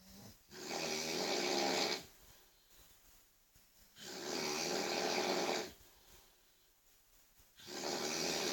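A person snoring very loudly: three long rasping snores, each about a second and a half, coming about every three and a half seconds, with quiet breathing gaps between them.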